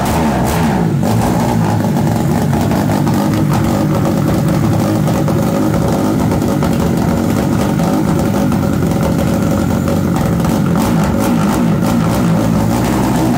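Tuned single-cylinder engine of a Honda CG-type motorcycle with an aftermarket exhaust, running and being revved up and down over and over.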